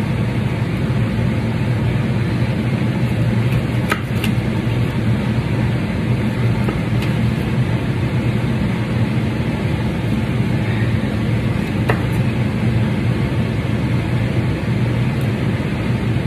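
Chef's knife slicing through a seared steak on a wooden cutting board, the blade giving a few light clicks against the board, over a steady low hum.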